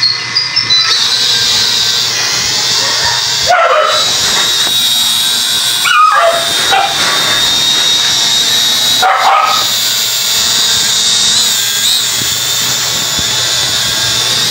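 Small folding quadcopter's electric motors and propellers spinning up with a steady high whine from about a second in, as the drone lifts off. A dog barks briefly three times over it.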